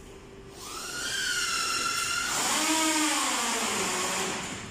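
High-pitched metallic squeal as a long copper tube is pushed through the fin stack of an oil-cooler core. It rises and holds for a moment, then glides down in pitch over about two seconds, with a hiss alongside.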